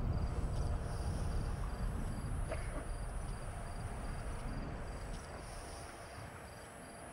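Night ambience: a cricket chirping about four times a second over a low rumble, slowly fading.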